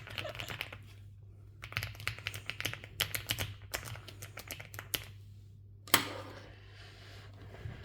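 Typing on a Rainy75 mechanical keyboard: quick runs of key clacks, then a pause and one louder single clack about six seconds in.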